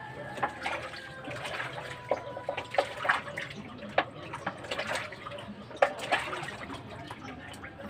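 Water sloshing and splashing in a plastic basin as a snakehead fish is scrubbed by hand to wash it clean, in irregular splashes and drips.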